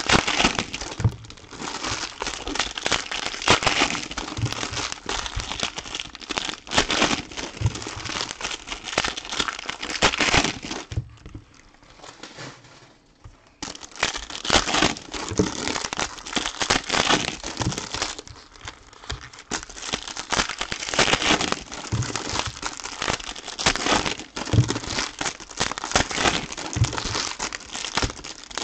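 Foil trading-card pack wrappers being torn open and crinkled by hand, a dense crackling full of sharp clicks, with a lull of about two seconds near the middle.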